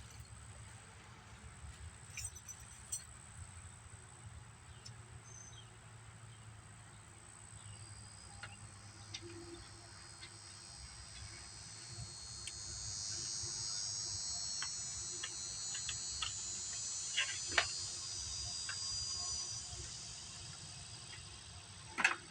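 Insects buzzing in a high-pitched drone that swells up about halfway through and fades near the end, over scattered light clicks and knocks, with a sharper click near the end.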